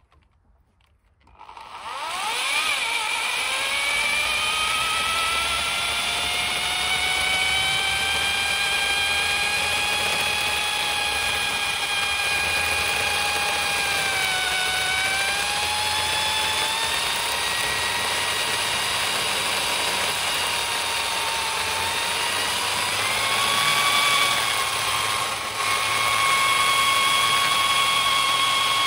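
Electric drill driving a mini chain saw attachment. It starts about a second and a half in with a whine that rises in pitch as it spins up, then runs steadily. The pitch dips briefly about halfway through and again near the end.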